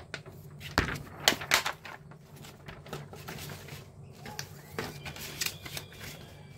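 Paper instruction manual and plastic-bagged kit parts being handled, rustling and crackling. A cluster of sharp crackles comes about a second in, and another shortly before the end.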